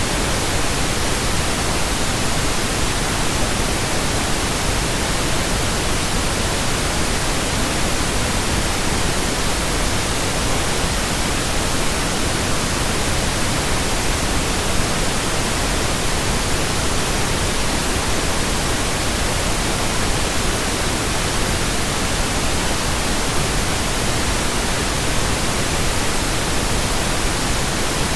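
Steady, unbroken pink noise: an even, synthetic hiss with no change in level and no other sound.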